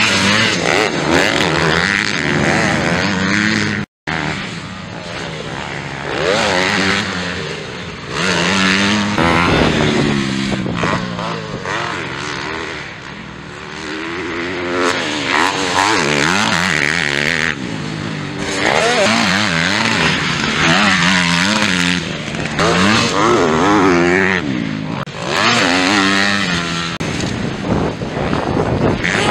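250cc motocross bikes racing on a dirt track, the engines revving hard and backing off so the pitch climbs and falls again and again as riders pass and take corners. The sound drops out briefly about four seconds in.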